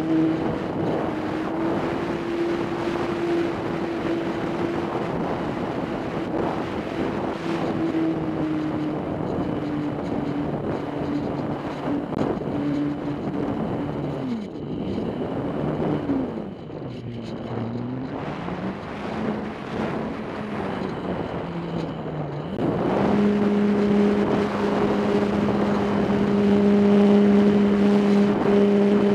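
An RC airplane's motor and propeller, heard from a camera on board, running with a steady hum that wavers and drops in pitch as the throttle is eased midway. About three quarters of the way through the throttle comes up sharply to a higher, louder, steady pitch. Wind noise on the microphone runs underneath.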